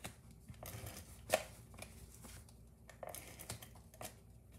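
Faint rustling and light tapping of cardstock being handled and pressed flat on a work mat while glue is applied to its back, with one sharper click about a second in.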